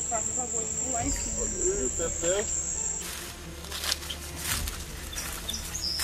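A steady high-pitched insect drone in the forest, with soft voices under it, that cuts off suddenly about halfway. After that come quieter forest sound and a few short high bird chirps near the end.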